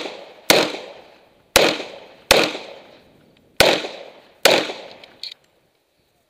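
Springfield Armory TRP 1911 pistol fired six times in three quick pairs, each loud shot trailing off in a long echo. A couple of small clicks follow near the end.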